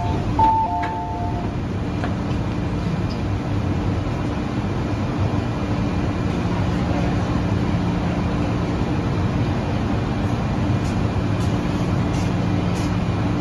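Interior of a Metro-Cammell M-Train subway car standing at a platform with its doors open: a two-note door chime sounds in the first second and a half, then a steady hum from the train continues.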